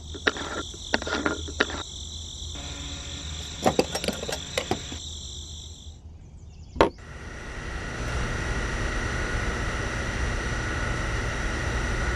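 Light clicks and taps of a small plastic fuel-tank cap being twisted open on a miniature model engine, over a steady high whine. A sharp click comes about seven seconds in, then a steady mechanical hum with a faint high whistle takes over.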